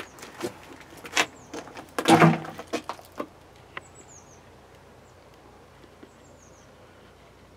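Knocks and rustles from a handheld camera being handled, loudest about two seconds in, then a low steady hiss with two faint high chirps.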